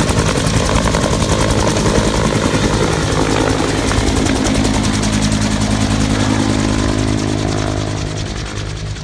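UH-1H Huey helicopter running, its two-bladed main rotor beating rapidly and steadily over the engine's steady tones. The sound grows fainter over the last couple of seconds.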